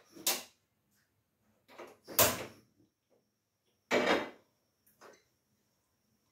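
Knocks and clatters of a frying pan and other kitchen things being handled at a gas stove: four separate bumps, the loudest about two and four seconds in.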